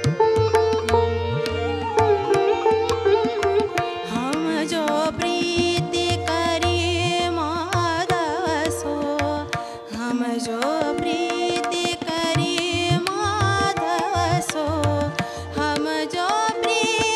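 Indian classical music: a sung devotional pada accompanied by harmonium, sitar and tabla, with the tabla strokes keeping a regular rhythm under the ornamented vocal line.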